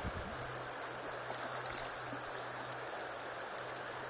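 Shallow river water flowing over stones: a steady rush of water.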